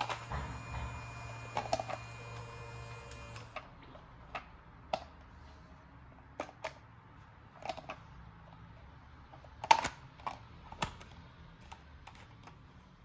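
Small plastic toy pieces being handled, giving scattered light clicks and taps, the sharpest about ten seconds in. A steady hum runs underneath and stops about three and a half seconds in.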